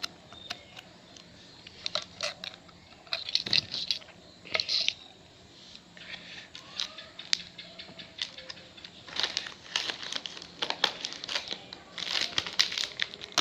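Plastic snack wrapper crinkling and rustling as it is handled, in irregular bursts of crackles that grow thicker in the last few seconds.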